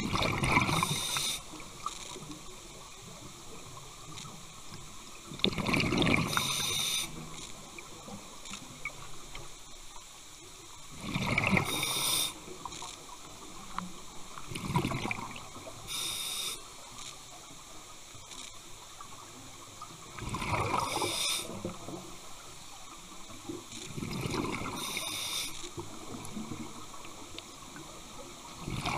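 Scuba diver breathing through a regulator underwater: a rushing breath with a burst of exhaled bubbles every four to six seconds, about six times.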